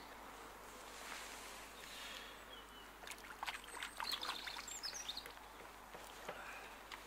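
Songbirds singing faintly in the open air, short chirps and whistles that come thickest in the middle, over a faint outdoor hiss, with a few short clicks among them.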